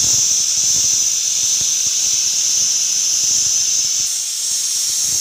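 Stovetop pressure cooker venting steam through its weight valve: a loud, steady, high-pitched hiss, the cooker's 'whistle' as built-up pressure escapes.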